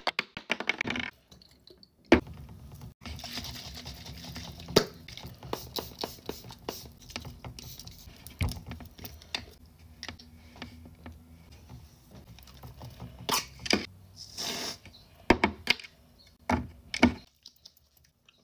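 Skincare bottles and caps being handled: scattered light clicks and taps of plastic, a serum dropper being used, and a brief soft hiss about two-thirds of the way through.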